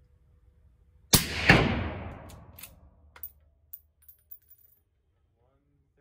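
A single suppressed shot from a 20-inch .308 rifle with a Thunder Beast Dominus 7-inch 30-caliber suppressor, metered at 133.2 dB at the shooter's ear. It is a sharp crack with a second loud peak about half a second later and a long fading echo. It is followed by a run of light metallic clicks and ringing tings as the bolt is cycled and the spent brass case bounces on the floor.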